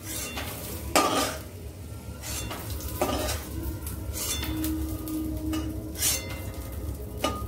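Flat metal spatula scraping and knocking against a metal wok (kadai) as fried peanuts are scooped out, with several sharp knocks a second or two apart.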